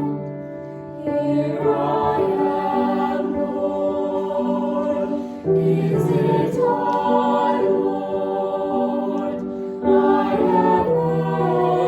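Hymn music with a choral sound: held chords that change about every four seconds.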